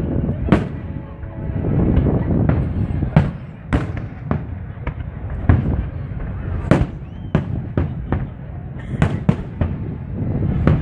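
Aerial fireworks shells bursting, about a dozen sharp booms and cracks at irregular intervals, over the steady murmur of a crowd of spectators.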